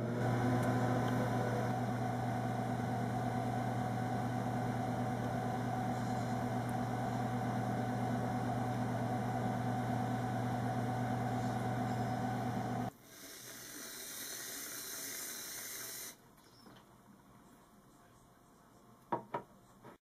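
Kenmore Elite microwave oven running while it heats a mug: a steady electrical hum that stops suddenly about 13 seconds in. A higher hiss follows for about three seconds, then two short clicks near the end.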